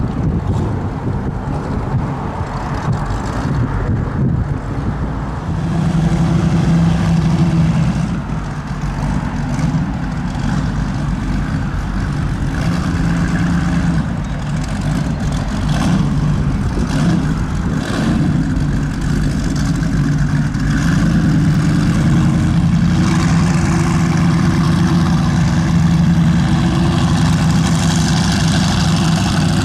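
Offshore go-fast powerboat's inboard engines running at low speed through exhaust pipes out the transom: a loud, steady low rumble that swells a little about six seconds in and again near the end.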